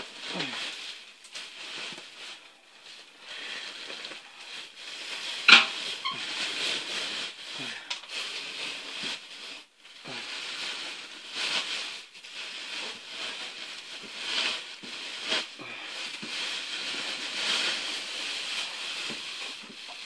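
Fiberglass insulation batts being pulled down from between ceiling joists: continuous rustling and crackling, with one sharp knock about five and a half seconds in.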